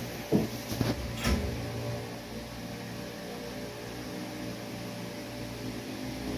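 Room tone: a steady low hum, with a few short knocks and rustles in the first second and a half.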